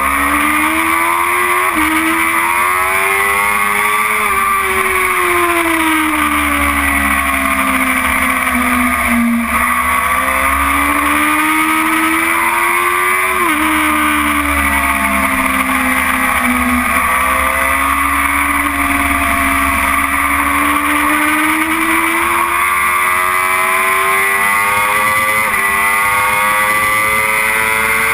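BMW S1000RR's inline-four engine at race pace, heard onboard. Its pitch climbs and eases through a corner, steps down sharply at upshifts about thirteen and seventeen seconds in, then rises steadily under hard acceleration on the straight, over a constant rush of wind.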